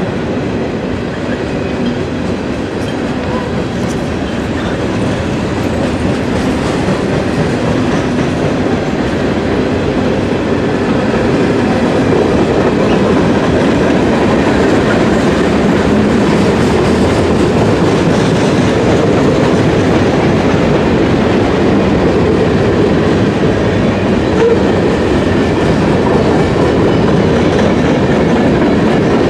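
Freight cars of a long manifest freight train rolling past steadily, wheels clacking over the rail joints. The sound grows a little louder over the first ten seconds or so, then holds steady.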